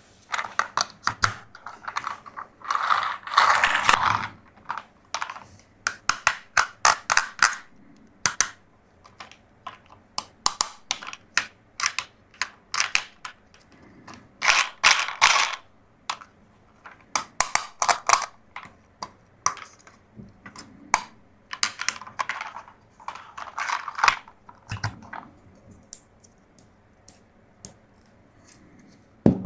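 Hard plastic toy parts clicking, snapping and ratcheting as they are handled, in a long run of sharp clicks broken by a few denser stretches of scraping or rustling.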